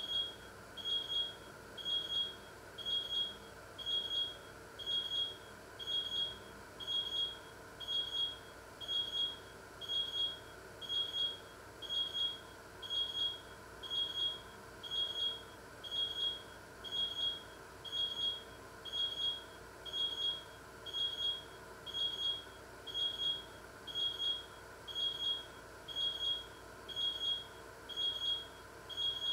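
An electronic alarm beeping steadily: one short high-pitched beep about every second, over and over.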